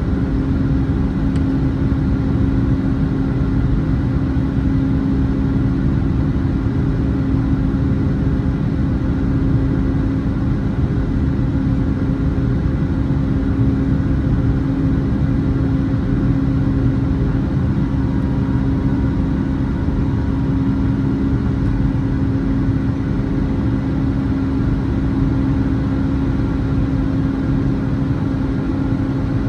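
Boeing 757-300's jet engines running at steady power: an even, loud drone with a constant low hum, unchanging in pitch and level.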